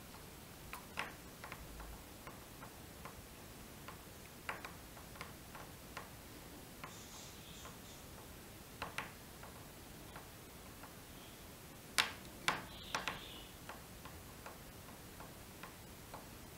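Light, irregular clicks and taps from fly-tying tools handled at the vise while a hackle is wound, with a couple of louder clicks about twelve seconds in, over a faint steady hiss.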